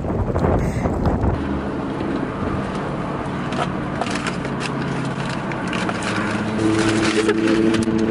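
Wind buffeting the microphone for about the first second. Then, inside a car, a low steady engine hum with scattered crinkling and rustling as paper and a stiff plastic pet cone are handled.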